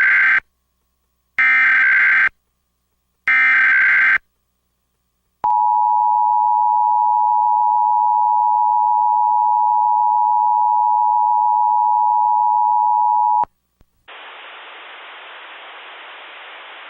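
Emergency Alert System tones. First come the digital SAME header bursts, each a harsh data screech about a second long: the end of one, then two more. Then the two-tone attention signal sounds steadily for about eight seconds and cuts off suddenly. A click follows, then a steady quieter hiss.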